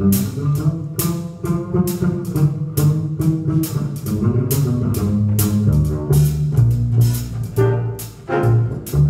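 Jazz ensemble playing, with a bass line prominent over the drum kit's steady cymbal strokes and some horn chords above.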